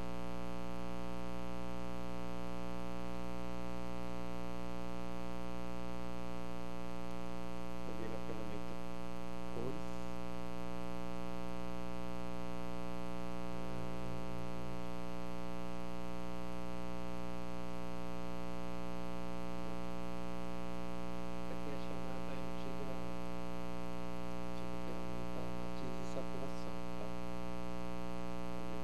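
Steady electrical mains hum, a buzzing drone with many harmonics, at an unchanging level, with a few faint brief noises scattered through it.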